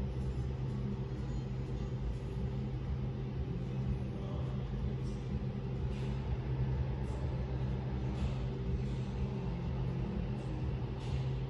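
Steady low mechanical hum with a constant low-pitched drone that does not change in level or pitch.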